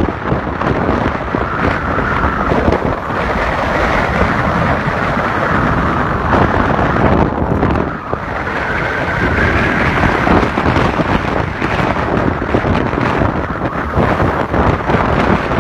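Wind buffeting the microphone of a camera carried on a moving motorcycle, over the motorcycle's running engine and road noise.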